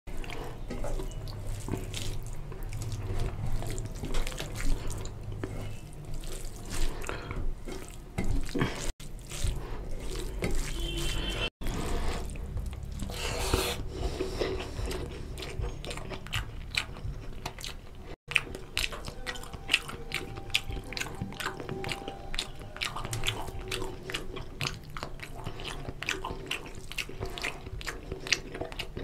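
Close-miked wet eating sounds: fingers squishing oily curry into rice, and chewing with wet clicks and lip smacks. There are a few brief gaps in the sound.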